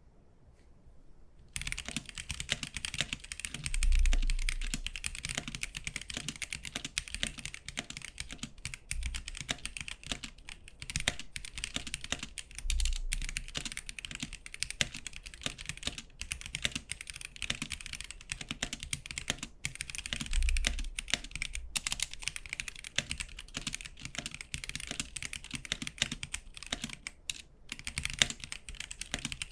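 Fast continuous typing on a Gamakay K66 mechanical keyboard with stock Gateron Yellow KS-9 linear switches, starting about a second and a half in, with a few deeper thuds among the key clicks.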